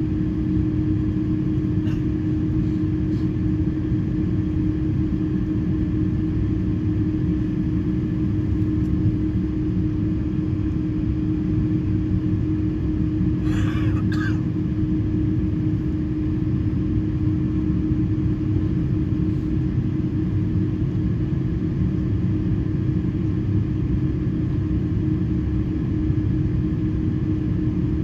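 Steady cabin hum of an Airbus A330-300 taxiing on the ground, engines at low power, with a constant low tone over the rumble. A brief cough-like sound about halfway through.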